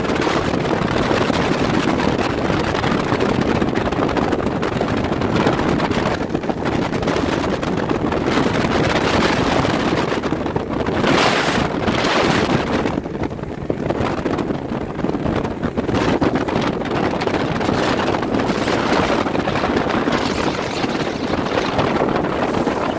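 Bass boat running at speed across a lake: steady wind rushing over the microphone, with the boat's motor and water noise underneath.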